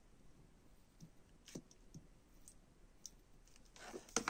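Faint, scattered clicks and taps of a clear plastic ornament ball being handled while satin ribbon is pressed along its seam, with a louder burst of handling noise near the end.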